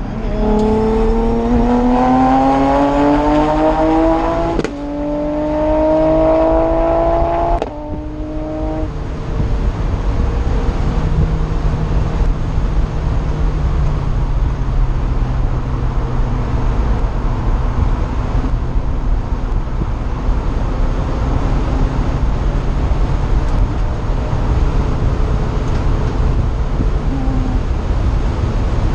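Toyota sports car's engine heard from inside the open cockpit, accelerating hard with rising pitch, a quick upshift about four and a half seconds in, then pulling up through the revs again until the throttle is lifted near eight seconds. After that, wind and tyre noise dominate over the engine running at steady, lower revs.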